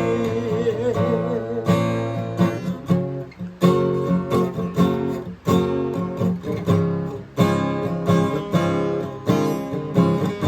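Acoustic guitar strumming chords in an instrumental passage, a new chord struck roughly every second.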